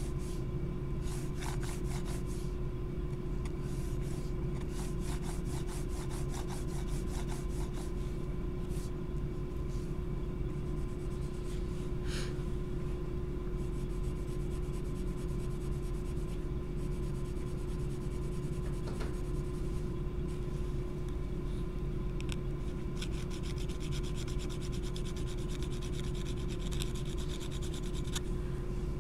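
Graphite pencil scratching on sketchbook paper in spells of quick back-and-forth shading strokes, over a steady low hum.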